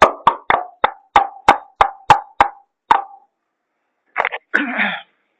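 Mouth pops or tongue clicks: a run of about ten hollow pops at roughly three a second, each with a short ringing tone of the same pitch. After a pause, two short rough noises follow near the end.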